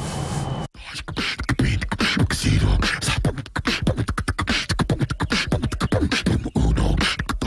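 Beatboxing: a fast, rhythmic run of vocal-percussion clicks and deep bass hits, with some sung pitch glides. It cuts in abruptly under a second in, after a moment of steady car-cabin hum.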